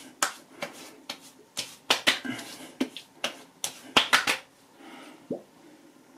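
Palms slapping aftershave onto a freshly shaved face and neck: a dozen or so quick, irregular slaps over the first four and a half seconds, then they stop.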